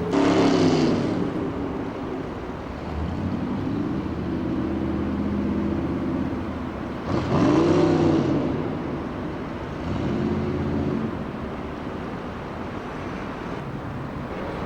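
Engines passing by over a steady motor drone: a sudden loud pass-by at the start and another about seven seconds in, its pitch arching up then down, with a smaller one a few seconds later.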